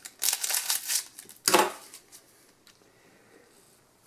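Foil trading-card booster wrapper crinkling as the cards are slid out of it: a longer rustle in the first second and a short sharp one about a second and a half in.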